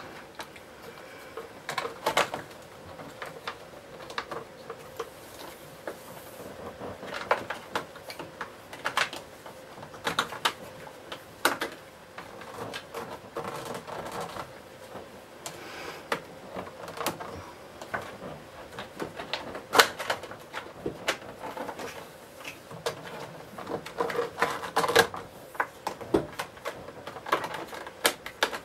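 Irregular clicks, taps and knocks of hands handling the body and base trim of a Hoover Junior 1346A vacuum cleaner while the trim is fitted, with a sharper knock about twenty seconds in.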